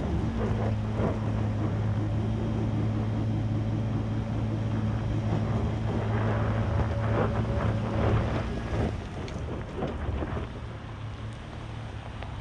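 Chevy Colorado ZR2's 3.6-litre V6 held at steady high revs as the truck strains up a loose off-road hill with traction control off, gravel and stones crackling and popping under the tyres. About nine seconds in the revs drop away.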